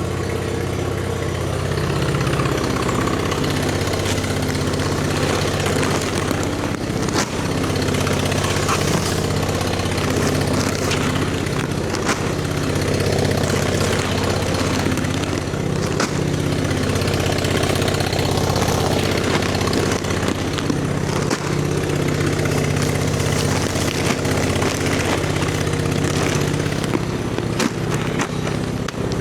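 Old skid steer's fuel-injected gasoline engine, newly replaced, running steadily, with a few short knocks here and there.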